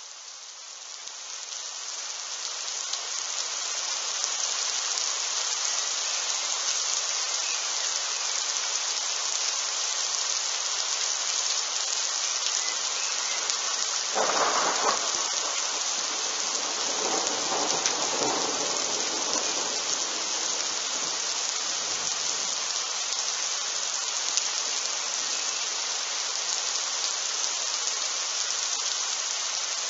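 Steady rain falling, its hiss rising over the first few seconds. About halfway through, a sudden clap of thunder is followed by a rolling rumble that dies away over several seconds.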